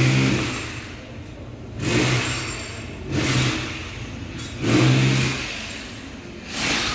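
An engine-like mechanical sound rising and falling in repeated swells, about five of them, one every second and a half or so.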